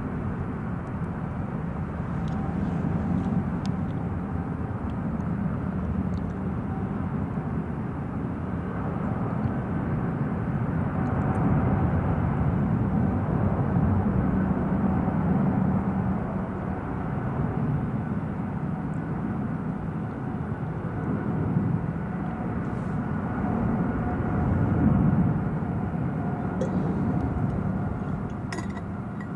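Distant jet airliner engines during takeoff: a steady rumble with a faint whine that swells toward the middle and eases off near the end.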